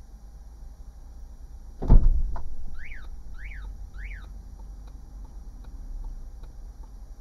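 A loud bump from two cars touching at low speed about two seconds in, with a couple of lighter knocks after it. Then three short electronic chirps, each rising and falling in pitch, evenly spaced about half a second apart.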